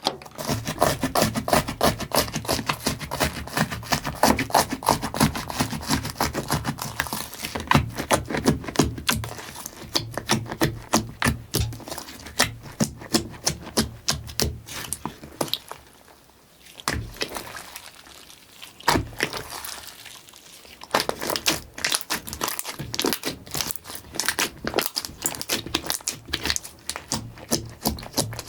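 Slime being squeezed, stretched and poked by hands, giving a dense run of fast clicks, pops and crackles that thins out for a few seconds in the middle.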